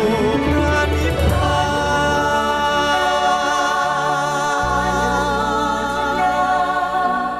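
Thai Buddhist devotional song: voices singing long held notes with a slow vibrato over instrumental backing, its bass notes shifting about two-thirds of the way in.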